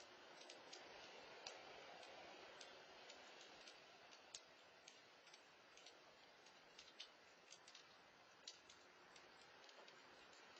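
Near silence: a faint hiss with scattered small, irregular clicks.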